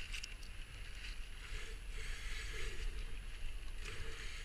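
Rushing white water of a river rapid, a steady hiss that swells and eases slightly, over a low rumble.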